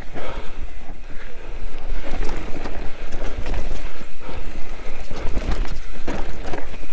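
Mountain bike riding down a dirt trail: wind rumbling on the microphone, with tyres and bike rattling and knocking over bumps.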